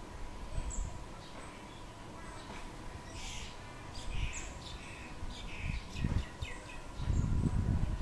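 Short high chirps and tweets from small songbirds, most of them in the middle few seconds, over a faint steady high tone. Near the end a louder low rumble sets in.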